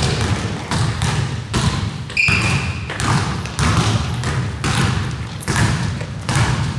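Basketball being dribbled on a hardwood gym floor, about two bounces a second, each bounce echoing. A short high squeak comes about two seconds in.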